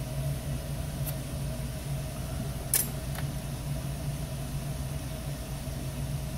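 Qidi X-One 2 3D printer humming steadily as it heats up, its cooling fans running, with one sharp click about three seconds in.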